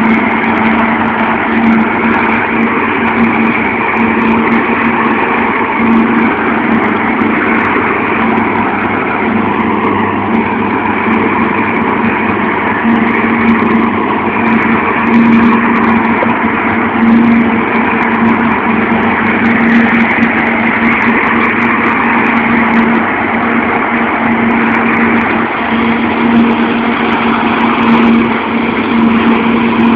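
Forage harvester and MB trac 1400 tractor running together while chopping maize: a loud, steady drone of engines under load with a constant hum, with the chopped crop blowing from the harvester spout into the trailer.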